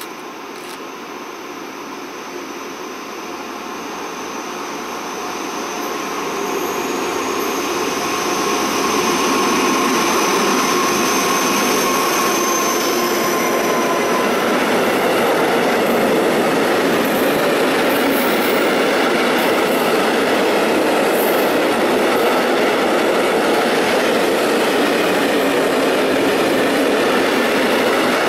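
A freight train approaches, led by a diesel locomotive, growing louder for the first several seconds. A long string of loaded tank wagons then rolls past close by with a steady, loud rumble of wheels on rail. A thin high whine is heard through the first half and fades out about halfway through.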